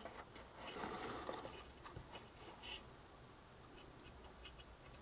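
Faint handling noise: soft rustling over the first second and a half, then a few light scattered clicks, as a small circuit board is held and turned in the fingers.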